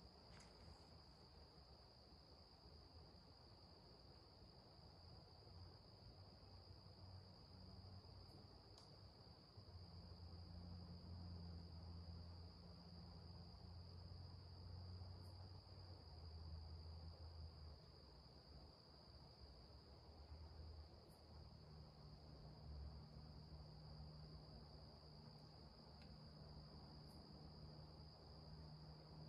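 Faint, steady, high-pitched chorus of crickets trilling without a break, with a low hum underneath.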